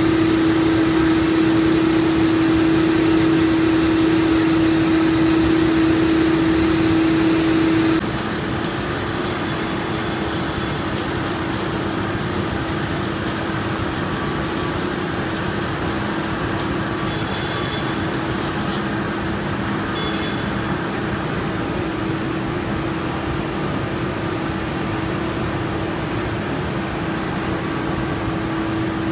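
Takano B201-1500 slitter rewinder running at speed while slitting PE-laminated cup stock: a steady mechanical hum with one strong constant tone over broad machine noise. About eight seconds in it drops a little in level and turns less hissy.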